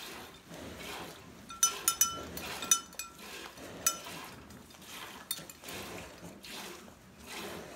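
Milk squirting in rhythmic strokes, about two a second, into a metal pail as a Jersey cow is milked by hand, with a few sharp metallic clinks from the pail in the first half.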